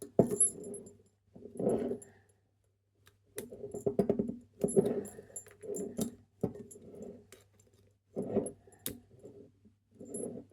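Metal clicking and rattling of double-locking handcuffs being worked with a lock pick, the cuff's double lock still on. Repeated short low vocal-like sounds run alongside.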